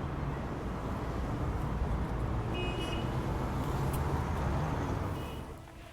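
Steady low rumble of street traffic with a couple of brief high tones, fading out near the end.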